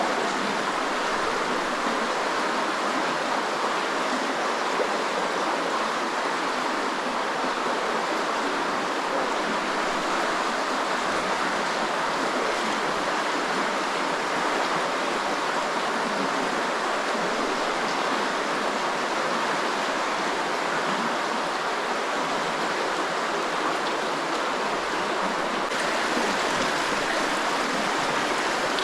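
Creek water running steadily, a constant rush.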